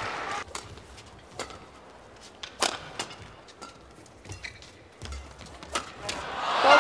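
Quiet badminton-arena hush between points, broken by a few scattered sharp clicks. Near the end, music swells in loudly.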